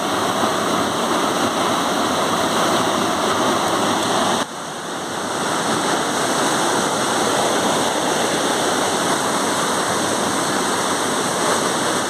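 Steady rush of fast-flowing water from a rocky stream or waterfall, with a brief dip in level about four seconds in.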